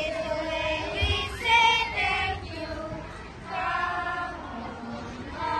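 A group of young children singing together in unison, holding long notes in short phrases with brief breaks between them.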